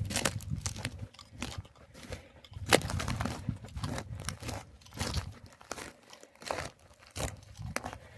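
Footsteps of hiking boots crunching on crusty, muddy ground at a steady walking pace, about three steps every two seconds.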